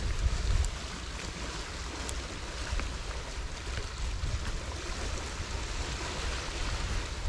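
Wind on the microphone: a steady rush with uneven low rumbling buffets, and a few faint rustles of dry grass.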